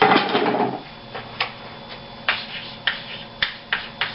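Chalk writing on a blackboard: a string of sharp taps and short scratchy strokes, about two a second, after a brief loud burst of noise at the start.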